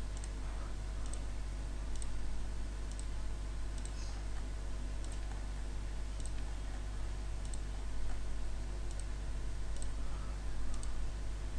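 Computer mouse button clicking: roughly a dozen single clicks, about one a second, as objects are picked one by one on screen. A steady low electrical hum runs underneath.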